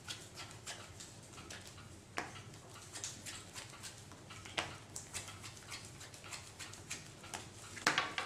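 Sleeved playing cards being thumbed through and laid down on a playmat: a run of soft ticks and flicks, with a few sharper snaps about two, four and a half, and eight seconds in.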